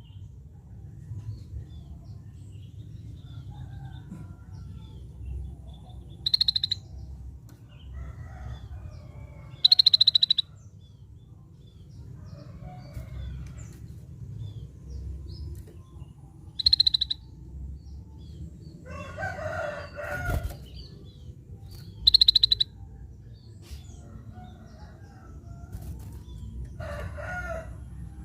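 Scaly-breasted bulbul (cucak bersisik) giving short, sharp, high-pitched calls, four of them several seconds apart. A lower, rougher bird call comes twice, about 19 s and 27 s in, over a steady low rumble.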